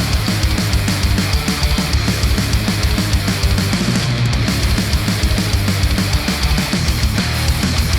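Loud heavy rock track with distorted guitars and a fast, driving drum beat, played back through Sennheiser open-back headphones and recorded by microphones on the headphone.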